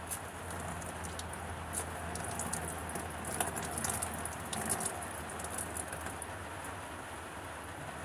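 Steady rain falling, with a run of sharp drips and small splashes of water in the middle.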